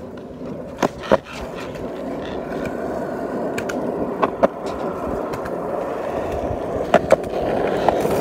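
Skateboard wheels rolling on concrete, the rolling noise growing louder as the board picks up speed. Three times a quick pair of clacks sounds as the wheels cross the joints in the concrete.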